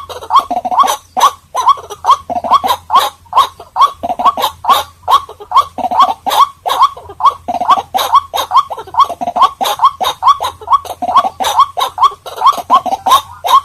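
White-breasted waterhens calling: a fast, unbroken run of short rising notes, about three a second.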